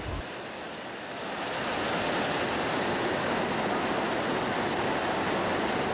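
Rushing whitewater of a fast, rocky mountain river: a steady, even rush of water that swells in over the first two seconds and then holds.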